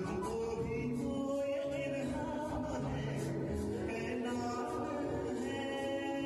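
Music from a slow Hindi film song, with voices holding long notes over the accompaniment.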